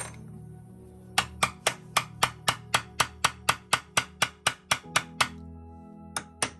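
Ball-peen hammer tapping a metal punch to knock down the metal clips of a round-baler belt splice, bending them over to the side. A quick, even run of taps, about four a second for some four seconds, then a short pause and two more taps near the end.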